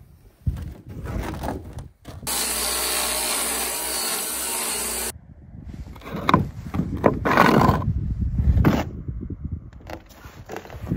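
A handsaw cutting through plywood with a quick run of back-and-forth strokes, about two a second. Before it comes a steady, even noise of about three seconds that starts and stops abruptly.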